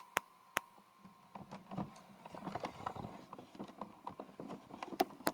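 A few sharp clicks, then a run of faint, irregular small clicks and rustling. A faint steady tone stops about two seconds in.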